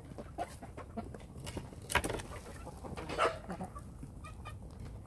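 Chickens clucking, with a couple of louder calls at about two and three seconds in and a few short notes near the end, over many small clicks and rustles of rabbits chewing feed pellets.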